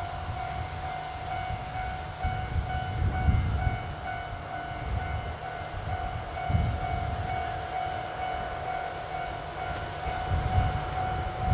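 Diesel freight train at the station: a steady whine over a low rumble that swells and eases a few times.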